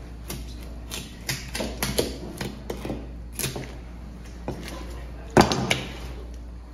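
Knife work on a large bluefin tuna: irregular clicks and knocks as the blade cuts along the carcass and the fillet is handled, with one louder knock about five and a half seconds in, over a steady low hum.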